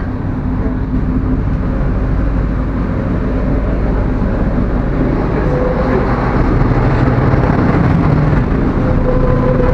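Tour boat's engine running steadily while under way: a low rumble with a faint steady hum, over wind and water noise.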